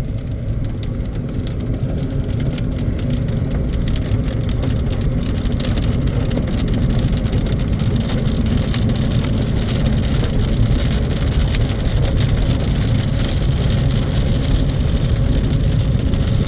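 Steady road noise inside a moving car in the rain: a low rumble of engine and tyres on the wet road, with rain pattering on the car.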